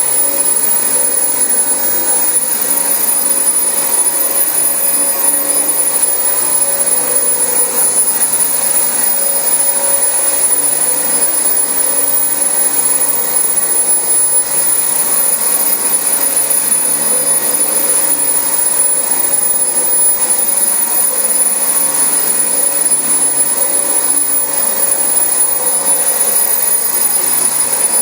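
Dyson DC25 upright vacuum cleaner running on carpet: a steady motor whine with rushing air and no break. Its suction is pulling down hard on the carpet, making the cleaner drag.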